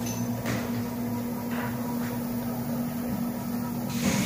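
Steady machine hum with a constant low tone, from the idle CNC router's equipment, with a few faint knocks.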